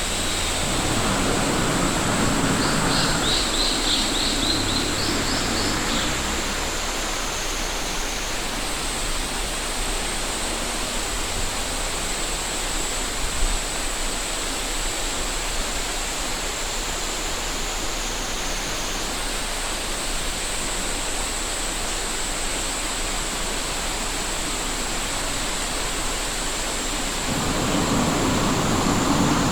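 A cicada sings one continuous high-pitched buzz that sags in pitch twice and jumps back up, over the steady rush of a river. A vehicle passes near the start and again near the end, and a small bird chirps briefly a few seconds in.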